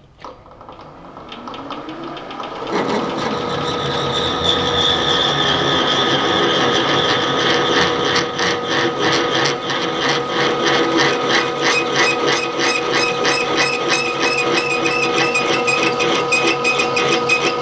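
Milling machine spindle driving a 12 mm left-hand twist drill, cutting slowly into a seized stainless-steel stud, with a steady whine and a fast, even ticking as long curls of swarf come away. It builds up over the first few seconds as the drill bites, then holds steady. The left-hand drill is used in the hope that its cutting torque will unscrew the stud.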